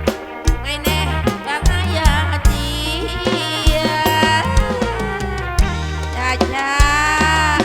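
Live Kantrum folk music through a PA system: a steady, driving drum and bass beat under a wavering, gliding melody line.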